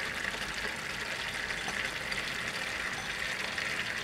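Steady hiss of a pot of fish and vegetables cooking over a gas burner.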